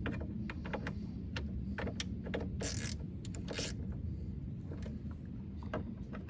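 Hand ratchet clicking in short, irregular runs as it snugs the headlamp's retaining screws down to a light nip, over a steady low rumble.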